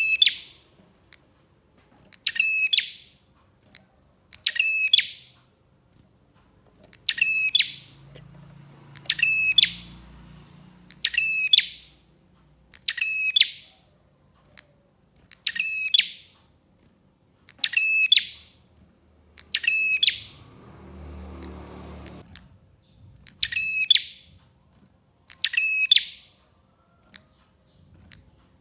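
Prenjak (prinia) song played as a lure: the same short, loud phrase repeated about every two seconds, each a quick rattling burst with a piercing high note.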